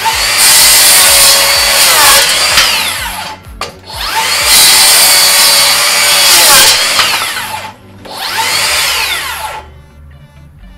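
Makita GSR01 40V cordless rear-handle circular saw cross-cutting a 2x8 board, the motor run three times, spinning up and winding down each time. The saw cuts cleanly with no sign of bogging.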